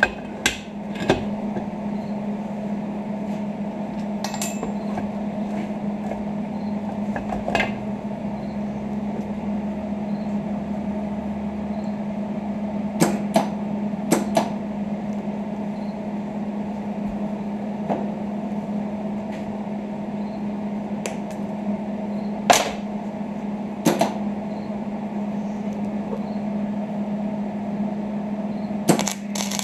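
Steady electric hum, with a few sharp metallic taps and clinks scattered through it.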